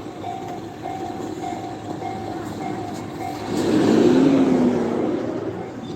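Japanese railroad crossing alarm ringing, a repeated electronic ding just under twice a second. About three and a half seconds in, a louder passing vehicle or train rumble rises over it, with a low wavering hum.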